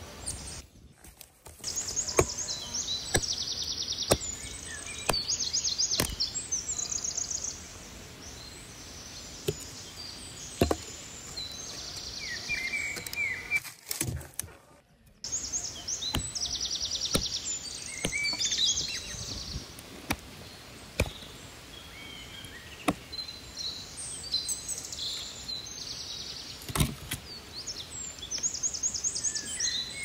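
Songbirds singing over a steady outdoor background, in repeated rapid high trills. Now and then come sharp snaps and knocks of dry branches being stepped over and gathered, the loudest near the end.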